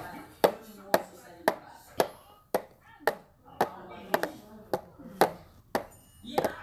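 A steady beat of sharp taps, about two a second, with a quiet voice in between.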